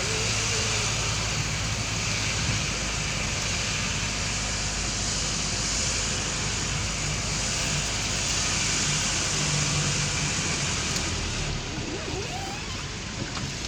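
A motor vehicle running steadily along a road, its engine and road noise constant throughout.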